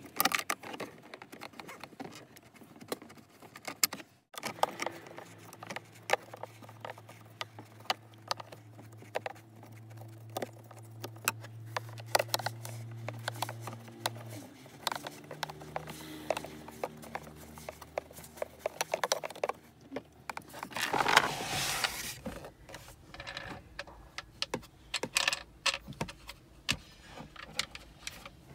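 Hard plastic console trim and cup holder parts clicking, tapping and rattling as they are handled and worked loose, with many short irregular clicks over a steady low hum. About three quarters of the way through comes a louder rustling scrape.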